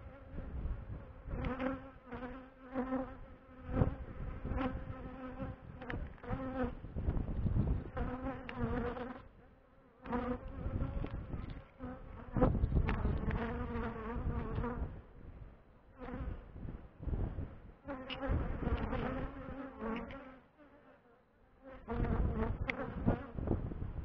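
Honeybees buzzing as they fly close around their hive past the microphone. The buzz swells and fades in passes, with a few brief lulls, over wind rumbling on the microphone.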